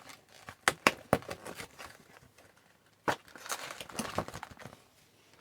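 Plastic wrapping and packaging of a trading-card hobby box being handled and torn open: crinkling and tearing with scattered sharp clicks and taps, busiest about three to four and a half seconds in.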